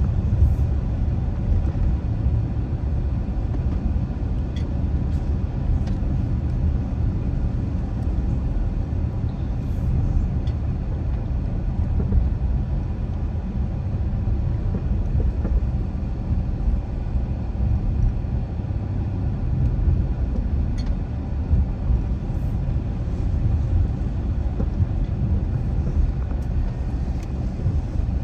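A car being driven at steady speed: an even, low road and engine rumble with no change through the stretch.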